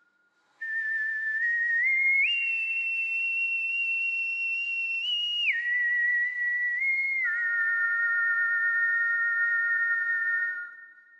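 A person whistling a slow, eerie melody of long held notes. The tune climbs in steps to a high note held for about three seconds, then drops back and lingers on lower notes with a slight vibrato. It fades out near the end.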